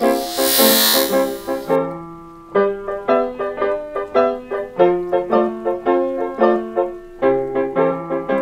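Opening theme music: a steady, rhythmic pattern of short keyboard notes. A loud hiss sweeps over the first two seconds, the music thins out briefly, and the note pattern starts up again about two and a half seconds in.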